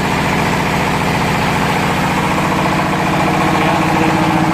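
Fish feed pellet machine running steadily, its drive making a fast, even pulsing drone. A higher steady hum comes in near the end.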